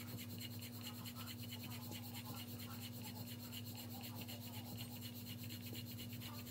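Wooden rolling pin rolling out stuffed paratha dough on a silicone mat: a steady run of quick, soft rubbing strokes, over a constant low hum.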